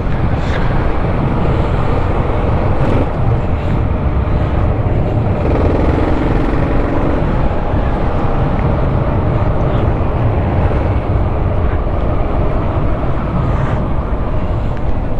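Steady wind and road noise from a bike in motion, a deep, unbroken rush.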